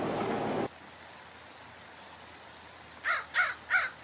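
Steady noise that cuts off suddenly under a second in, then, from about three seconds in, a quick run of short animal calls, about three a second.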